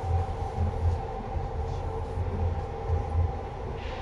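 Eidan 7000 series subway train with Hitachi traction motors running at steady speed, heard from on board. Two held tones hum steadily over a low, pulsing rumble.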